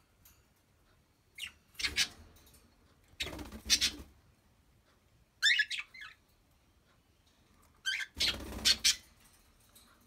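Cockatiel giving a few short chirps, with one clear chirp about halfway through, between three bursts of rustling noise.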